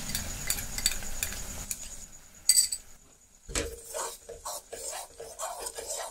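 A perforated metal spoon clinks and scrapes against a metal kadai while stirring a thick cashew and sugar syrup mixture with custard apple pulp, which bubbles with a soft sizzle. The clinks are quick and many at first, with one loud clink about two and a half seconds in. After a short lull, slower scraping strokes follow from about three and a half seconds.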